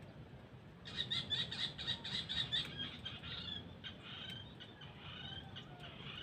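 A bird chirping in a quick chattering run. It starts about a second in and thins out over the next few seconds.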